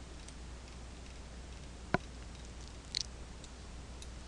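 Two computer mouse clicks, a sharp one about two seconds in and a softer one about a second later, with a few faint ticks over a low steady hum.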